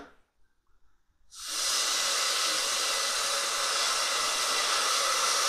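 Risotto rice in a hot pan sizzling with a steady hiss of steam as a white wine reduction is poured in. The hiss starts abruptly about a second in.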